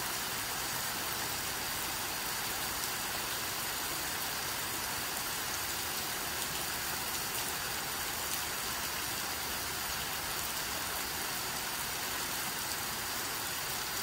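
Steady rain falling, an even hiss with a few faint drop ticks now and then.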